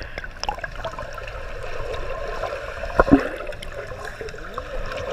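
Water sloshing and trickling around the camera in a water-park pool, with one sharp knock about three seconds in.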